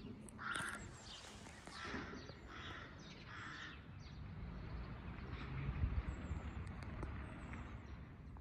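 Crows cawing outdoors, four calls less than a second apart in the first half, over a steady outdoor background with a low rumble that grows louder in the second half.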